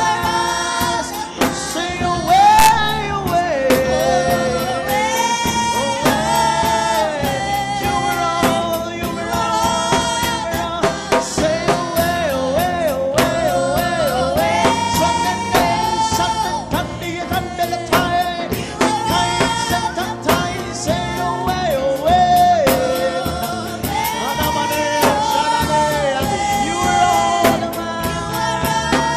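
Live gospel worship music: a sung melody with long held and gliding notes over a band, with drum hits keeping a steady beat.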